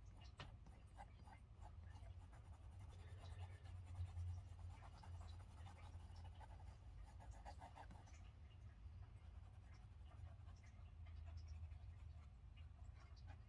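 Faint, irregular scratching of a Derwent Drawing Pencil (Ink Blue) shading on drawing paper, with a low steady hum underneath.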